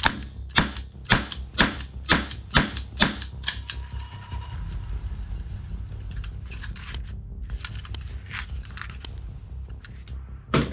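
Toy revolver firing seven sharp shots in quick succession, about two a second, followed by fainter clicks and handling rattles and one more sharp snap near the end.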